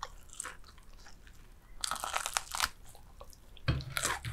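Close-miked crunching and chewing of crispy fried chicken coating, with a dense run of crunches about two seconds in and another near the end.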